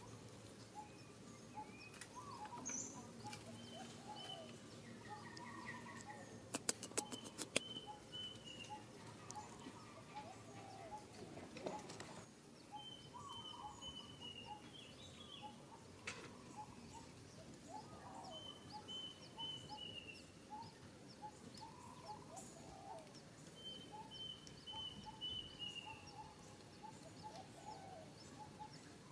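Birds singing outdoors: one repeats a short phrase of quick high notes that drop at the end, every five seconds or so, over steady small chirps from other birds. A quick run of sharp clicks about seven seconds in.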